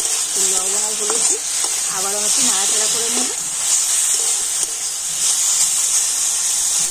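Ridge gourd slices sizzling as they fry in mustard oil in a metal kadai, with a steady frying hiss. They are being stirred and turned with a metal spatula.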